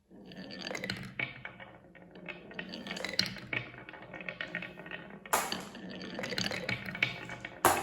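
Many marbles rolling and clattering down a wooden marble run track, a dense stream of clicks and clinks, with a louder rattling burst about five seconds in and again near the end.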